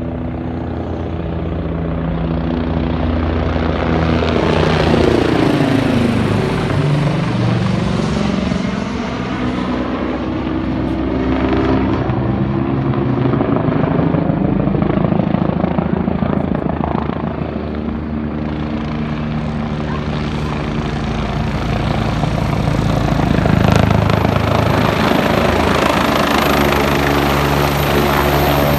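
AgustaWestland AW109SP twin-engine helicopter approaching to land, its rotor beat and turbine whine continuous and loud. Its pitch sweeps down about a third of the way through as it passes close overhead, and the sound swells again near the end as it comes in nearer.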